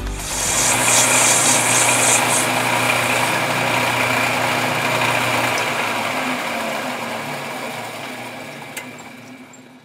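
Metal lathe turning a brass gate-valve stem, running loudly with extra high cutting noise for the first two seconds or so. Over the last few seconds the sound fades steadily away as the spindle runs down to a stop.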